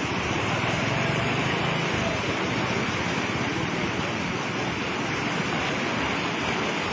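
Fast-flowing floodwater rushing steadily through a concrete channel, an even unbroken noise.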